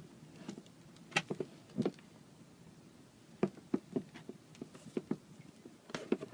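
A run of irregular light knocks and clicks, a dozen or more short sharp taps, with a few louder ones at about a second, two seconds, three and a half seconds and near the end, over a low steady background hum.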